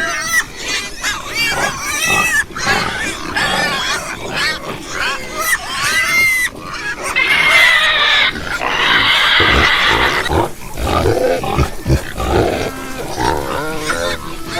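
Domestic pigs squealing and grunting, several calls overlapping, with a loud, long squeal near the middle followed by low grunts.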